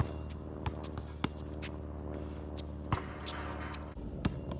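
Basketball bouncing on an outdoor hard court as a player dribbles, about six sharp thuds at uneven intervals, with a brief shoe scuff in the middle, over a steady low hum.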